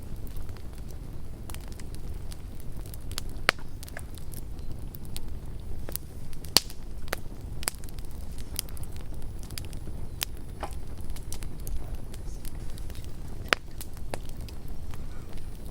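Campfire crackling: burning wood giving irregular sharp pops and snaps, a few louder ones standing out, over a low steady rumble.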